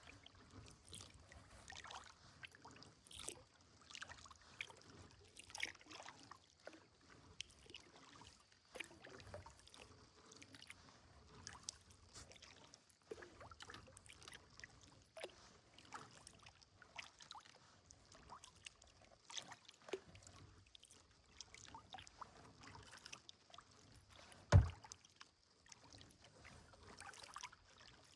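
Kayak paddling: the paddle dipping and pulling through calm water, with drips and small irregular splashes. About three-quarters of the way through there is a single loud, sharp knock.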